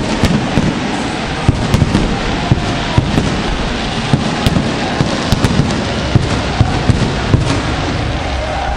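Stadium fireworks going off in irregular sharp bangs and cracks, a couple a second, over the steady din of a large crowd.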